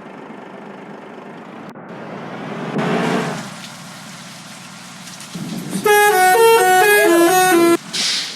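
Road traffic noise swells as a vehicle passes about three seconds in. Then an Indonesian bus's telolet musical air horn plays a quick tune of changing notes for about two seconds and cuts off sharply, followed by a short hiss.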